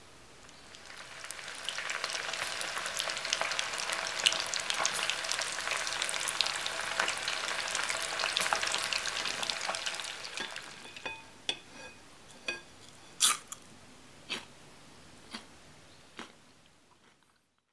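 Small whole fish deep-frying in a pan of hot oil: dense, vigorous crackling and sizzling, which thins out after about ten seconds to scattered single pops before fading away.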